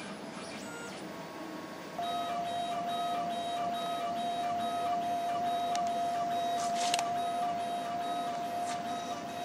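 Apollo 600 CO2 laser cutter running, its gantry motors giving a steady whine with a quick, regular pattern of short pulses as the head moves; it gets louder about two seconds in. A brief click about seven seconds in.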